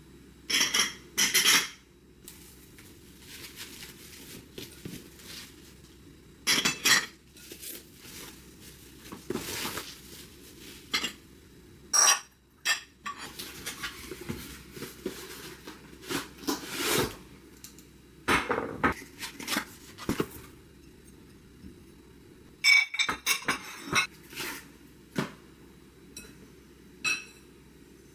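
Dishes clinking and knocking as they are handled and set down, in irregular bursts, with a few bright ringing clinks about a second in and again around two-thirds of the way through.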